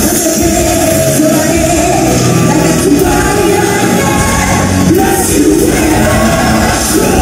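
Live anime-song rock performance: a woman sings lead into a microphone over a loud full band.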